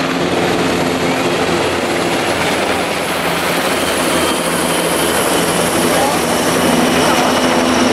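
Military helicopter flying overhead, its engine and rotor making a loud, steady noise.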